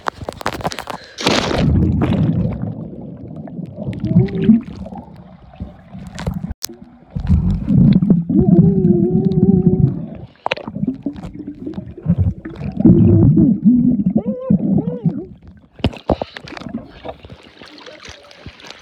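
A splash about a second in, then pool water heard underwater through a phone sealed in a waterproof case: muffled gurgling and rumbling in loud stretches, with low wavering tones running through them. Near the end it thins to a faint hiss.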